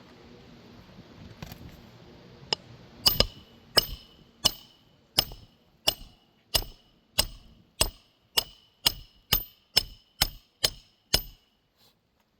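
A hammer driving a roofing nail through a replacement 3-tab asphalt shingle: about sixteen sharp ringing strikes, a little over one a second and quickening toward the end, until the nail is set flush.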